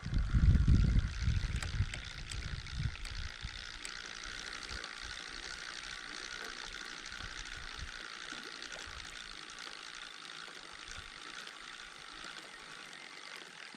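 Steady hiss of running, trickling water, with low rumbling thumps during the first three seconds.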